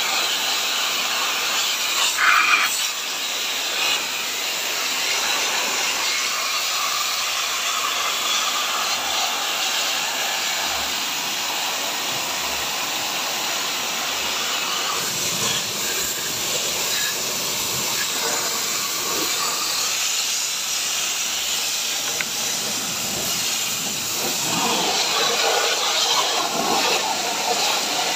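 Fine high-pressure water jet from a Mollar HPW500 electric pressure washer, sprayed through a brass AC-cleaning nozzle onto the aluminium fins of an air-conditioner evaporator coil, hissing steadily.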